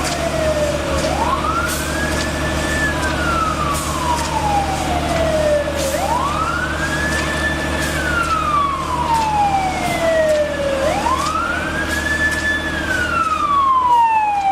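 Emergency vehicle siren wailing in slow cycles: each one rises quickly, holds briefly at the top, then falls away over a few seconds, about three times. A steady low engine hum runs underneath.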